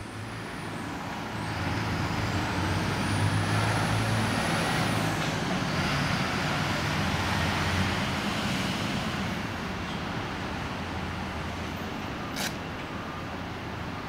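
Street traffic: a heavy vehicle's engine rumble and road noise swell over the first couple of seconds, hold, then slowly ease off. A faint high whine glides through the first half, and there is one sharp click near the end.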